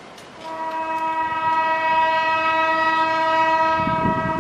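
Keihan 3000-series electric train sounding its horn as it approaches, one steady note held for nearly four seconds from about half a second in. Near the end the low rumble of the train running in on the rails rises under it.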